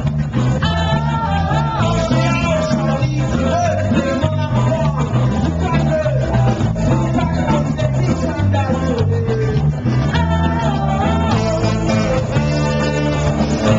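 A live band playing loud: electric guitars and bass over a steady beat, with a saxophone section including a baritone saxophone, and singing into microphones.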